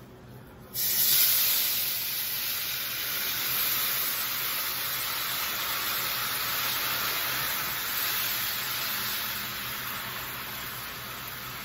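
Beef bone broth poured into hot, bubbling browned butter, sizzling as it hits the fat: a sudden loud hiss about a second in that settles into a steady sizzle as the broth is whisked in.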